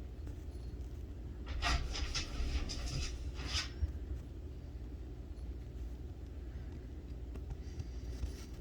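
A steady low background rumble, with a few short hissing puffs close to the microphone about one and a half to three and a half seconds in.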